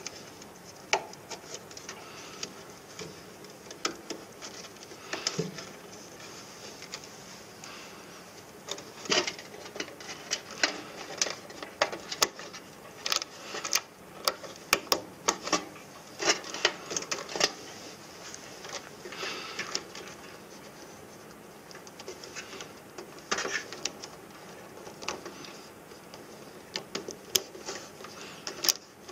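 Hands handling wiring and plastic wire connectors inside an inverter unit's cabinet: irregular clicks, snaps and rubbing as connectors are worked loose and cables are moved, busiest in the middle stretch.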